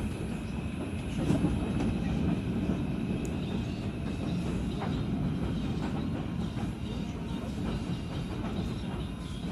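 Interior sound of an R142 subway car, a steady low rumble with a few faint clicks and a thin high whine that fades out about three seconds in. The ventilation is switched off, so no fan noise is heard.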